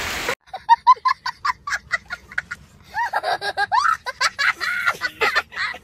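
A young boy laughing hard, first in quick repeated bursts, then in longer, rising-and-falling laughs.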